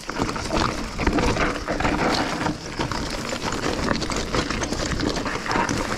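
Mountain bike riding over a rocky, dusty trail: tyres crunching on loose stone, with the bike rattling and knocking many times.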